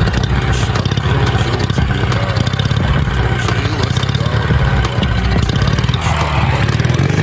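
Ural motorcycle's flat-twin engine running steadily with a knock in it, the knock whose cause the owner is asking about.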